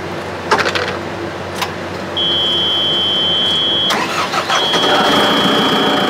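Cab warning buzzer of a JCB 3CX backhoe, a steady high tone that comes on about two seconds in, breaks off briefly near four seconds and comes back, over the machine's diesel engine running, which grows louder as the buzzer starts. A few clicks from the cab controls come before it.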